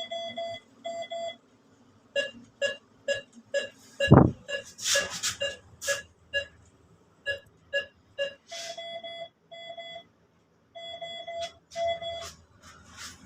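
Electronic beeping: short beeps about three a second, changing to longer beeps in the second half, with a loud thump about four seconds in and some scraping noises after it.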